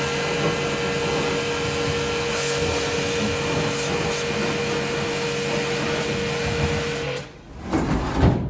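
A motor-driven machine running steadily, with a whirring noise and a constant whine, cuts off abruptly about seven seconds in. A brief low rumble and knock follow near the end.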